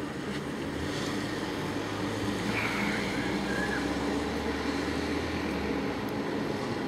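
Steady outdoor background rumble of distant road traffic, with a low hum that fades out near the end and a brief high squeak about two and a half seconds in.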